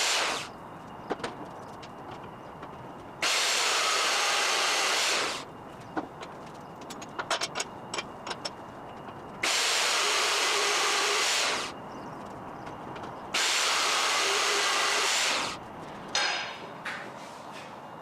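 Power drill boring bolt holes in steel plate. It runs in bursts of about two seconds, starting abruptly and winding down when released, four times. Small clicks and knocks sound in the pauses between.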